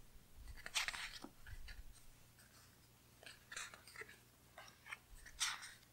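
Sticker sheet and planner pages being handled: a few faint, scattered rustles and crinkles of paper.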